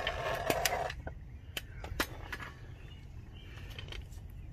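Handheld mini torch flame hissing steadily as it heats a seized ball-joint pinch bolt, shut off about a second in. A few sharp clicks follow.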